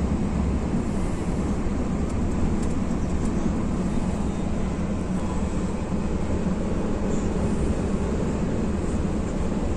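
Steady low engine and tyre rumble heard from inside the cabin of an intercity bus cruising at highway speed.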